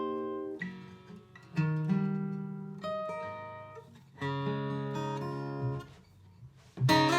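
Larrivee L-02 acoustic guitar playing chords, a new chord struck about every one and a half seconds and each left to ring and fade. The notes sound clear with no fret buzz.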